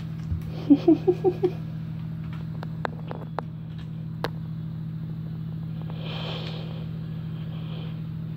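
A steady low hum, with a quick run of five short pitched sounds about a second in, then a few faint sharp ticks and a soft rustle as a cat plays with a feather toy on a scratching post.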